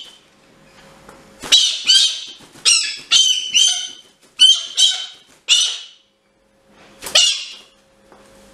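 Young galah screeching: a quick run of about eight harsh squawks, a pause, then one more squawk.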